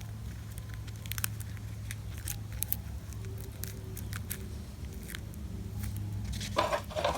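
Scattered light clicks and crackles of scissors and scotch tape being handled to secure and trim gold thread, over a steady low hum.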